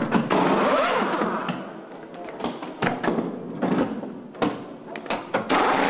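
Pit-stop wheel change on a GT1 race car: short rattling bursts from a pneumatic wheel gun working the wheel nut, and between them thuds and knocks of wheels and tools being handled.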